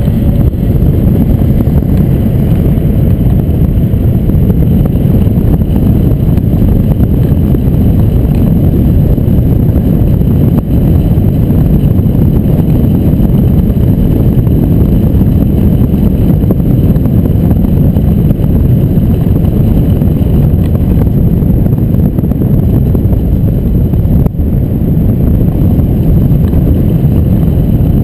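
Wind rushing over a keel-mounted camera on a hang glider in flight: a loud, steady, low rumble of airflow on the microphone.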